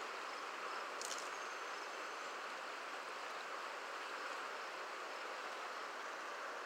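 Steady rush of flowing creek water, with one faint click about a second in.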